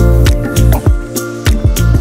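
Background music with a steady drum beat, about two beats a second, over a strong bass line.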